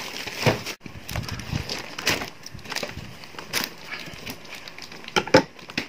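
Scissors cutting packing tape on a cardboard box, with irregular snaps, clicks and scrapes of tape and cardboard. A couple of sharp snaps about five seconds in are the loudest.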